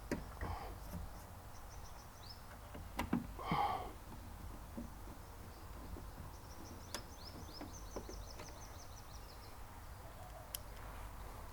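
Light knocks from a car speaker being handled and set into place, the loudest pair about three seconds in. A small bird sings in the background: two quick runs of high chirping notes.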